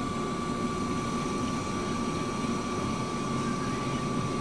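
Steady hum and hiss of a fast-food dining room's background noise, with a thin, steady high tone over it.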